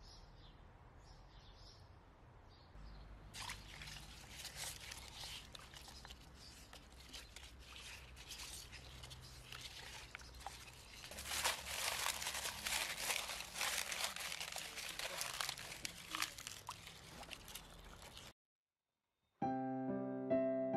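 Bamboo leaves being washed by hand in a basin of water: splashing and rustling, louder in the second half. Faint bird chirps come before it. Soft piano music starts after a brief silence near the end.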